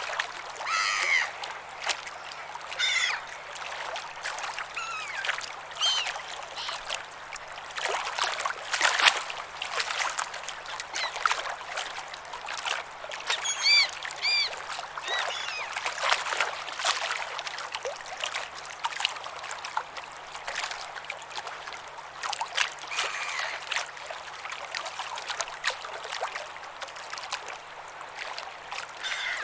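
Ocean water lapping and splashing close by, with birds calling on and off, including a quick run of calls about 14 seconds in.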